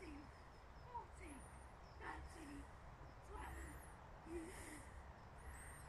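Faint, low cooing calls of a bird, repeated about once a second, with thin high chirps in between.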